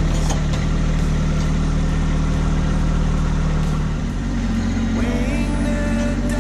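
Kubota B2601 compact tractor's three-cylinder diesel engine running steadily as the loader grapple works. Its engine note shifts about four seconds in, and a brief rising whine comes in about a second later.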